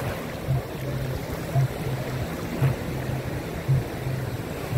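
Small, gentle sea waves washing and fizzing up a muddy sand beach, a steady wash of surf noise. Under it a low hum swells in even pulses about once a second.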